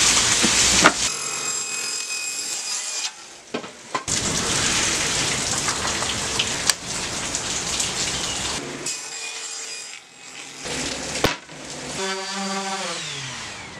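Power tools working 8 mm plywood in short clips that cut off abruptly: a table saw cutting a panel, then a random orbital sander. Near the end a motor's whine falls steadily in pitch as the sander spins down.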